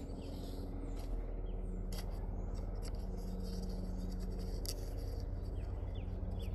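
Helicopter passing overhead: a steady, rapid low beating of its rotor with an even hum, and a few sharp clicks.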